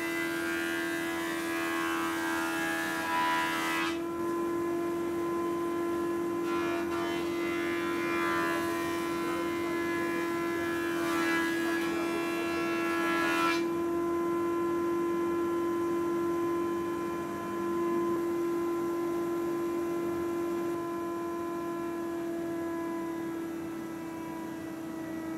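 Thickness planer running with a steady whine. Timber feeding through the cutterhead adds a hissing cutting noise for the first few seconds and again from about six to thirteen seconds in. After that only the machine's whine is left.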